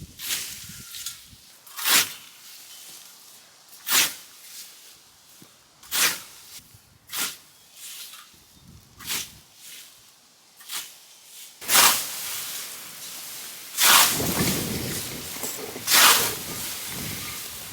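Scythe blade swung through standing hay grass, a hissing swish roughly every two seconds, about ten strokes. A denser rustle of cut grass and steps runs under the last few strokes.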